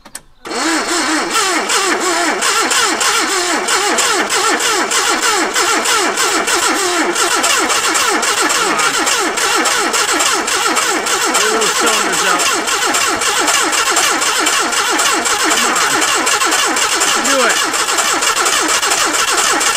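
Starter motor cranking a 1978 Datsun's carbureted engine at length without it catching, a steady unbroken churn. The carburetor's throttle blade is seized and the engine is likely flooded.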